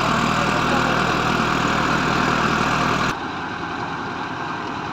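Tractor engine running steadily, driving a pile-boring rig. About three seconds in it drops suddenly to a quieter, duller running.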